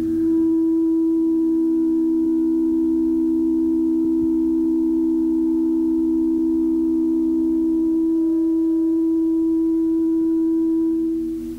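Ambient electronic music from a home four-track cassette recording: a held drone of two steady, pure-sounding low tones with fainter higher tones above them, which cuts out briefly just before the end.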